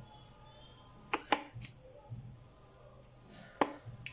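Blue plastic spoon clicking against the mixing bowl and gel bottle as aloe vera gel is scooped into the oil mixture: a few short, sharp clicks, two together about a second in and one more near the end.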